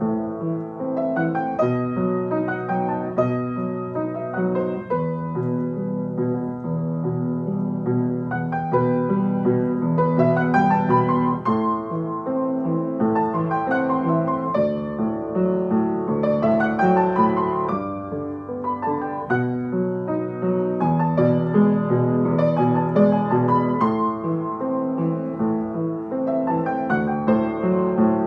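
Upright acoustic piano played solo with both hands: a flowing piece of chords over a bass line, with a rising run twice, about ten and about fifteen seconds in.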